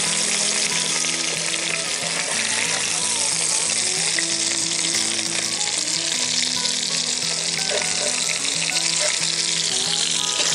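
Ground-beef Salisbury steak patties sizzling steadily as they brown in hot grease in a cast iron Dutch oven, with a metal spatula moving among them. Soft background music plays underneath.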